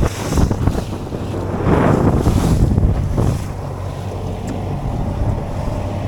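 Wind gusting across the microphone on a small boat at sea, over a steady low hum from the boat's engine.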